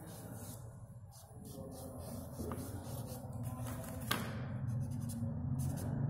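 A hand rubbing and smudging charcoal on drawing paper in short, scratchy strokes over a steady low hum. A single sharp click comes about four seconds in.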